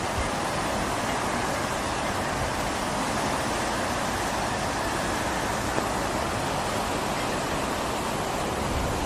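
Swollen river floodwater rushing through a harbour: a steady, even rush of churning water with no breaks. The river is in storm flood.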